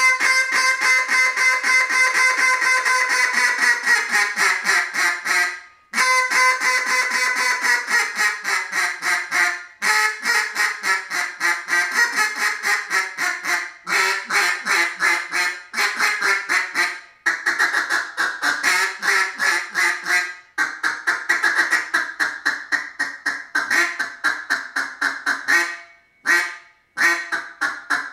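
Ebonized Osage orange (hedge) open-water duck call blown through a loud, high-pitched calling routine: long runs of rapid quacks, broken by short pauses for breath about every four to six seconds.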